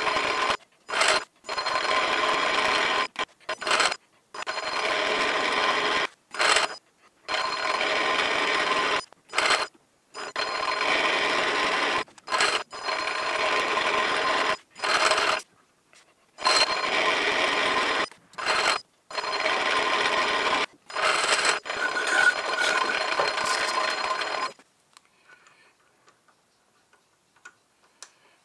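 Small metal lathe running with a steady whine in repeated runs of one to three seconds, stopping and restarting with brief bursts in between, as a threading tool screw-cuts a fine thread on a miniature crankshaft end. The runs stop a few seconds before the end, leaving only faint light taps.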